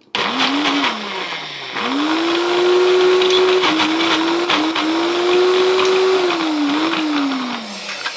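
Countertop blender blending a thick frozen blueberry smoothie. A short pulse winds down after about a second, then the motor starts again and runs for about six seconds, its pitch dipping now and then as the frozen fruit loads the blades. It winds down near the end.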